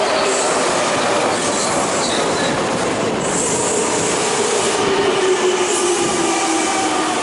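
Semboku Rapid Railway 5000 series eight-car electric train arriving and braking at a station platform: a steady rumble of wheels on rail, with the motor whine gliding slowly down in pitch as the train slows.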